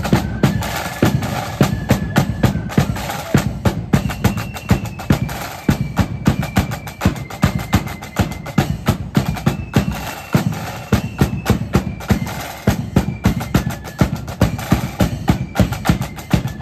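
Marching band's side drums rattling and rolling over a steady bass drum beat in march time, with a high melody line of held notes above the drums.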